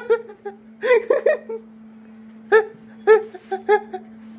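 A woman laughing and giggling in several short bursts, over a steady low hum.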